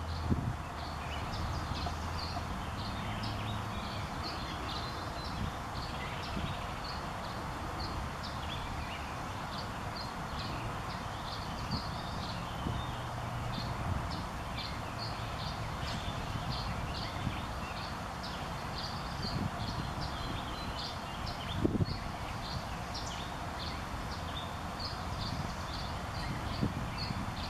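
Small birds chirping: a steady run of short, high chirps, two or three a second, over a constant outdoor hiss, with a dull thump about 22 seconds in.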